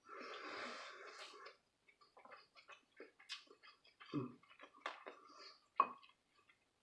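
Close-up mouth sounds of someone eating quinoa and kale: a soft noisy rush in the first second and a half, then many small irregular wet clicks and ticks of chewing.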